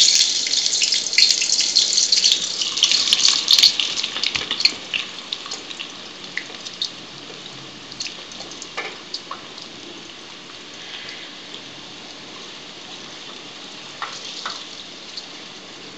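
Sliced onions sizzling in hot mustard oil in a steel pot. The hiss and crackle are loud for the first few seconds, then settle into a quieter steady sizzle with scattered pops.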